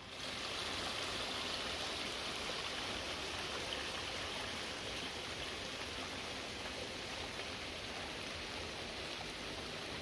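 Steady rain falling, heard as an even hiss.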